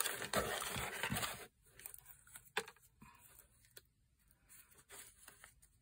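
Hands rummaging in a cardboard box and rustling paper, loudest for the first second and a half, then quieter paper rustles and small clicks as a folded paper slip is unfolded.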